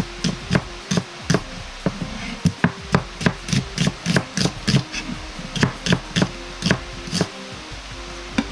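Kitchen knife slicing an onion lengthwise on a plastic cutting board: a steady run of sharp knocks on the board, two or three a second, with soft background music under it.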